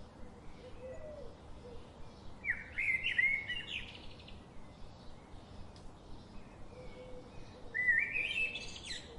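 A bird singing two short phrases of quick, stepped chirps that rise in pitch. The first comes a couple of seconds in and the second near the end, with fainter calls between them.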